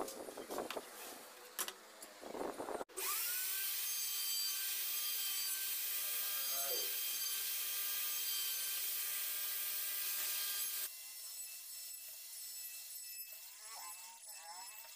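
Table-mounted wood router running at high speed with a steady high whine while a wooden strip is fed past the bit to cut a moulded edge. The whine drops to a fainter level about eleven seconds in. Before it starts there are a few seconds of irregular scraping and knocks on wood.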